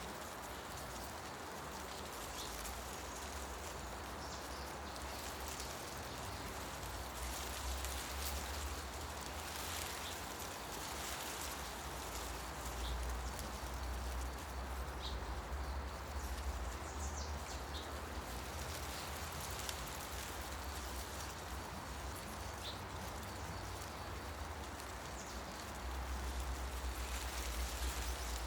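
Wind through tree leaves, a steady rustling hiss with a low rumble underneath that swells a few times. Short bird chirps come now and then.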